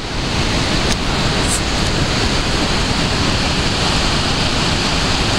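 Steady rushing of Niagara's Horseshoe Falls and the rapids just above its brink, heard close up as a loud, even wash of falling water.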